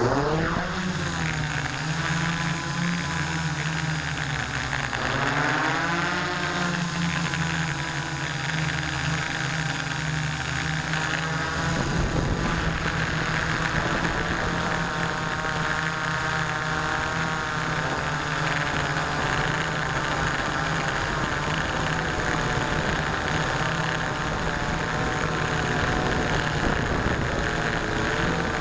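Electric motors and propellers of an S650APM hexcopter, heard close from the camera mounted on it, taking off and flying. The pitch swoops up and down with the throttle near the start and again a few seconds later, then settles into a steady drone.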